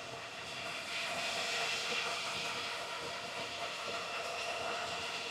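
Steady rushing whir of many running Bitcoin ASIC miners' cooling fans, with faint steady whining tones in it.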